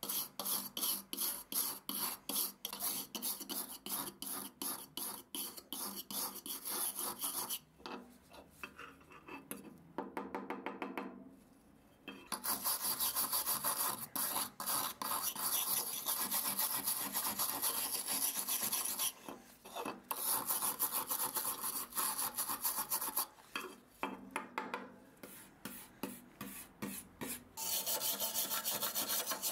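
Stiff hand brush scrubbing rust off the steel parts of an old camping stove, first a burner disc and then the pot-support frame, in rapid back-and-forth scraping strokes. The strokes run about four a second, go softer about a third of the way in, then turn dense and near-continuous.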